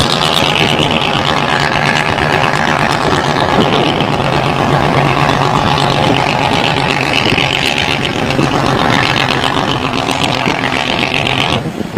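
Loaded Alfa Romeo FNM D-11000 truck's diesel engine running loud and steady on the road.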